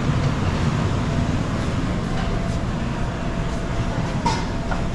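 Steady low rumbling room noise, with faint voices of other people in the background.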